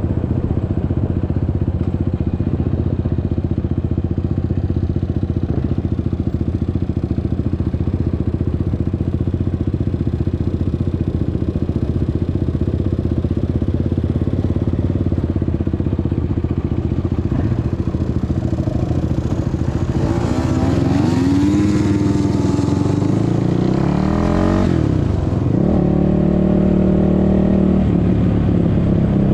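Suzuki LTR 450 quad's single-cylinder four-stroke engine running at a steady low note, then revving up about twenty seconds in as it pulls away, the pitch climbing, dropping sharply once, and settling at a higher steady note.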